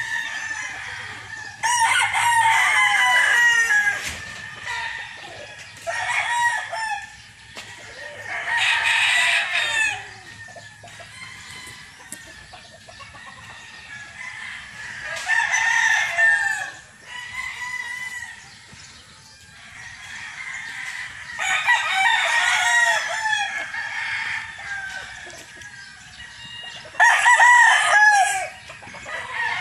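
Gamecock roosters crowing again and again, about six crows each lasting a second or more and spaced a few seconds apart.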